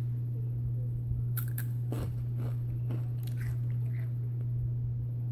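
A person crunching and chewing a Takis Fuego rolled tortilla chip, with a few sharp crunches spread through. A steady low electrical hum runs underneath.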